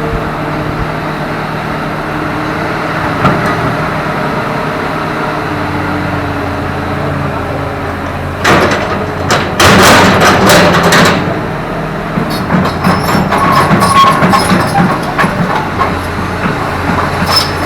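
Hydraulic excavator's diesel engine running steadily, then about halfway through a few seconds of loud clattering and knocking, followed by scattered knocks near the end.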